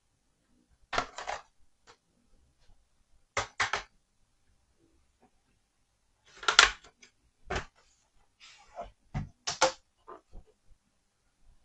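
Irregular clicks, taps and short clatters of small hard laptop parts and tools being handled, set down and knocked together while the laptop is taken apart. The loudest clatter comes about six and a half seconds in.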